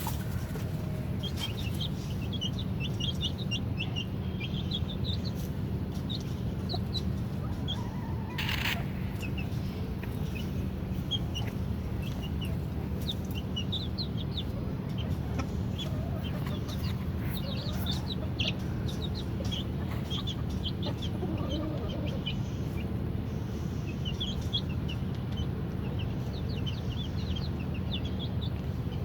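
Aviary birds calling, with many short high chirps repeating throughout and a brief sharp sound about eight and a half seconds in, over a steady low hum.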